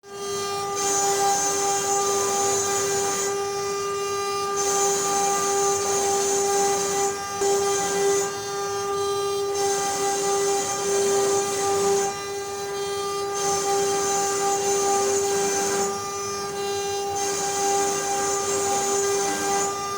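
CNC wood router's spindle running at high speed, a steady high-pitched whine, with a higher hiss that comes and goes every two to three seconds.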